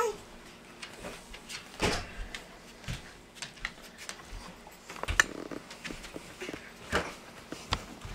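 Irregular knocks, clicks and thumps from a large dog moving about on a hard floor, with several louder thumps scattered through.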